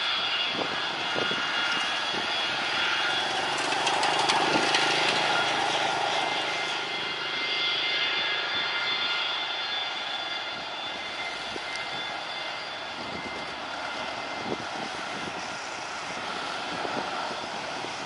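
Boeing 737-200's Pratt & Whitney JT8D turbofan engines running with a steady whine as the jet taxis. They grow louder about four to six seconds in, then ease off a little.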